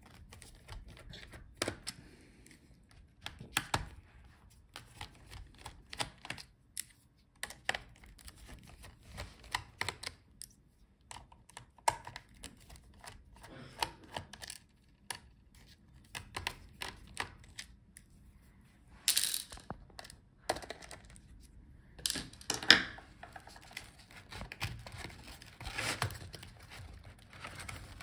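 Small screwdriver clicking and scraping on the laptop's battery screws as they are backed out, with irregular light clicks and taps of metal on plastic. A louder scrape and one sharp click come in the second half.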